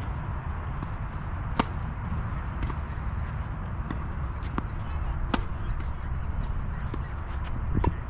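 Tennis rackets striking the ball during a doubles rally: sharp pops, the loudest about one and a half seconds in and about five seconds in, with fainter knocks between. A steady low rumble runs underneath.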